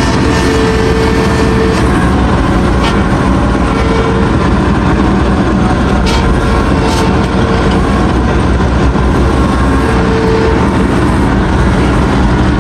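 Diesel engine of a Ransomes FrontLine 723D mower running steadily and loudly, with a steady whine coming and going and a few brief clicks.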